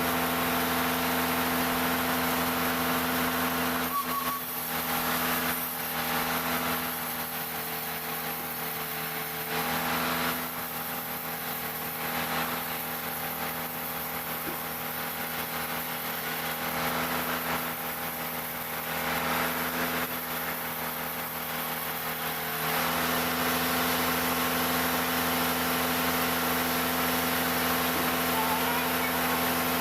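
Engine of a wood-cutting sawmill machine running at a steady speed, the sound dropping a little quieter for a long stretch in the middle and coming back up about three-quarters of the way through.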